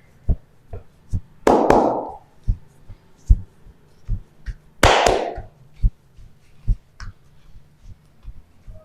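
Hands tapping and thumping on a patient's body during a chiropractic treatment: a string of dull, irregular thumps, about two or three a second, with two longer rushing noises about a second and a half and five seconds in.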